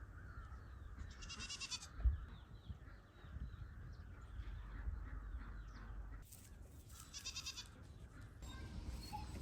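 Goat bleating twice, two short quavering calls about five seconds apart, with faint small chirps and a low wind rumble on the microphone between them.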